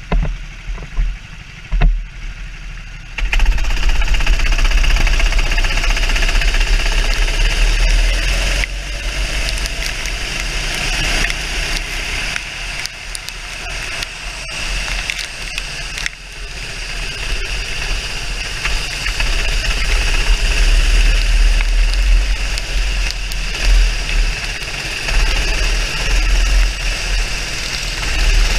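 Racing kart engine heard from on board, running hard on track: quieter for the first three seconds, then much louder from about three seconds in and staying loud, rising and falling with the throttle.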